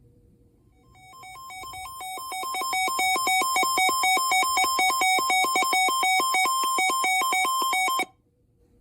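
Emergency alert receiver's alarm: a rapid warbling beep alternating between two pitches. It swells up over the first couple of seconds, holds steady and loud, and cuts off abruptly near the end, signalling an incoming weather warning.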